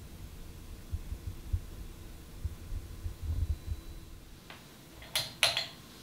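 Encon Imperial 56-inch ceiling fan running, with an irregular low thumping that stops about two-thirds of the way in. Near the end there is a faint click, then two sharp clicks a quarter second apart.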